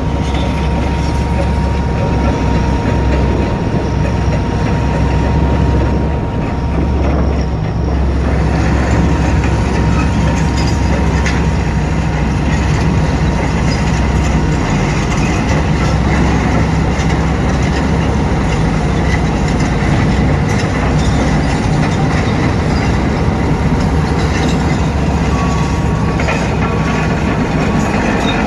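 Heavy diesel mining machinery running: a deep, steady engine rumble with continuous rattling and clatter. A thin steady whine sounds over it and stops about a third of the way through.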